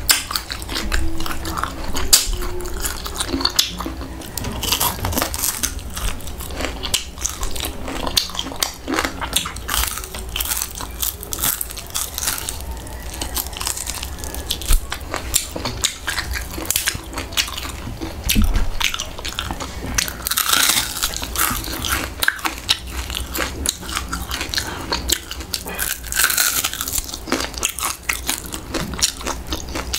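A person biting and chewing crispy fried pork tail, with many short crunches throughout.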